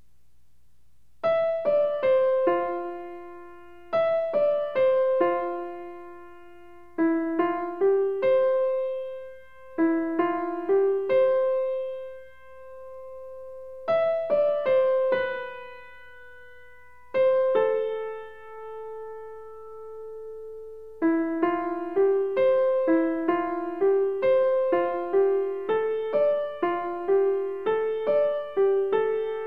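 Background piano music: a slow melody of single struck, fading notes in short phrases with brief pauses, settling into a steadier run of about two notes a second in the last third.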